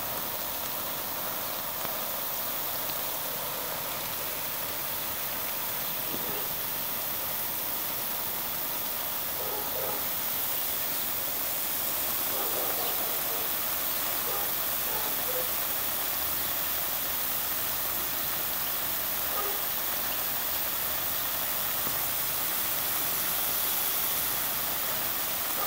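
Steady hiss of water spraying from a garden hose and falling on the grass and on the geese.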